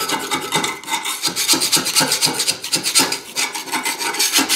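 A flat metal scraper blade scraping rust scale off a rusty steel plate in quick, short, repeated strokes.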